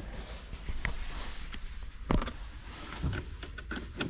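Scattered clicks, knocks and scraping of hands working on the car battery in the trunk, with one sharper knock about two seconds in and a few lighter ones near the end.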